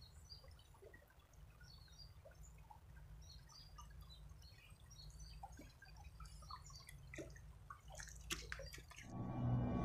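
Faint babbling of a shallow river running over stones, many small drip-like plinks over a low steady rumble. About nine seconds in, louder music comes in.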